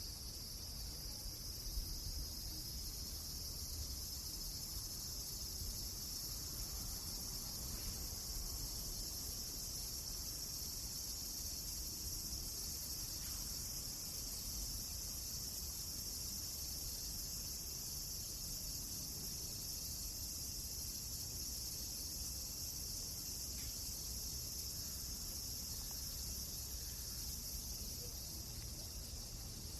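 Steady, unbroken high-pitched chorus of crickets over a low rumble, with a few faint clicks scattered through it.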